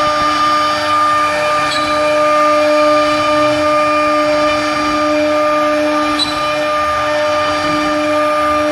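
IR2030 CNC router spindle running with a steady whine while its 12 mm ballnose bit carves a relief into pine wood, the cutting noise going on underneath.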